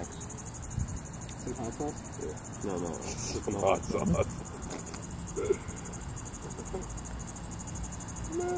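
Steady, high-pitched insect chorus with a fast pulsing trill. A few quiet voice sounds come and go, the loudest about three to four seconds in.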